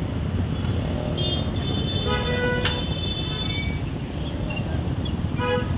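Steady street-traffic rumble with several short vehicle horn toots, one about a second in, a longer one from about two to three seconds, and another near the end. There is a single sharp clink about two and a half seconds in.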